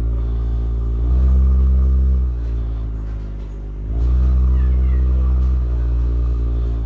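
Sony GTK-XB5 speaker playing a deep sustained bass drone with a steady stack of overtones. It swells louder twice, about a second in and again about four seconds in.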